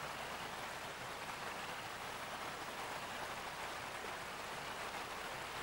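Steady rushing of a turbulent river.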